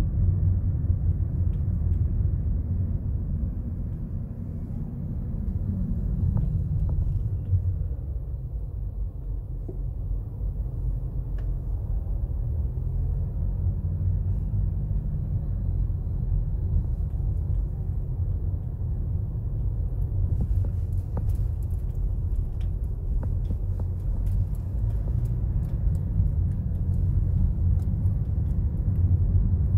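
Low, steady rumble of a Toyota Corolla's engine and tyre noise heard from inside the cabin while driving, with faint scattered clicks in the second half.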